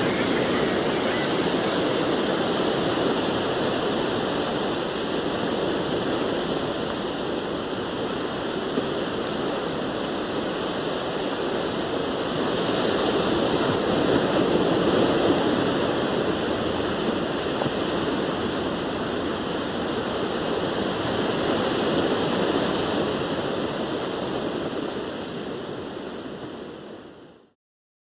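Ocean surf washing onto a beach as a steady wash of noise that swells a little twice, then fades out quickly near the end.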